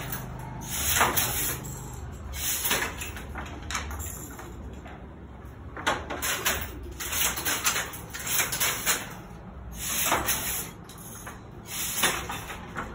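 Banarasi handloom with a jacquard attachment being worked: repeated wooden clacks and knocks from the loom's moving parts, about every one to two seconds.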